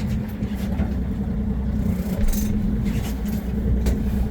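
A boat's engine running steadily, a low drone with a constant hum.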